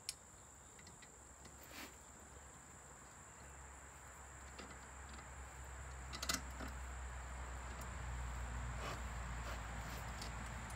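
Faint clicks and taps of pliers on the air-hydraulic pump's reservoir fill plug as it is put back in, the clearest about six seconds in, over a steady high-pitched whine and a low rumble that swells from about three and a half seconds in.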